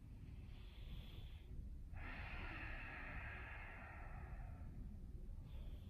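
A man breathing slowly: a shorter breath about half a second in, then a longer one of nearly three seconds from about two seconds in, over a faint low rumble.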